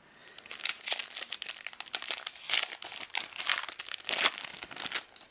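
Crinkly wrapper of a trading card booster pack rustling and crackling as it is torn open and handled.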